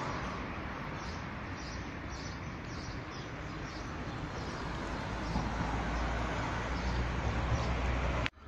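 Kittens eating wet cat food from a plate, soft repeated smacking about twice a second, over a steady outdoor hiss; a low rumble grows from about halfway and the sound cuts off abruptly just before the end.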